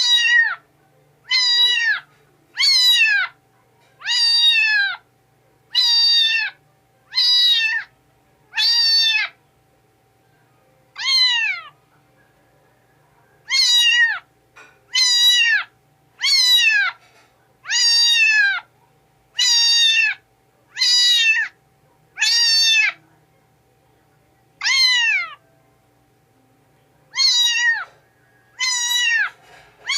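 Kitten meowing over and over, about one meow every second and a half, each call dropping in pitch at its end, with a couple of longer pauses.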